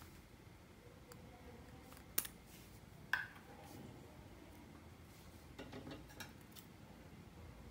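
Quiet handling sounds of a plastic novelty lipstick over a glass dish: two sharp clicks about a second apart as it is uncapped, the second ringing briefly, then a short stretch of soft crackling and a light click near the end.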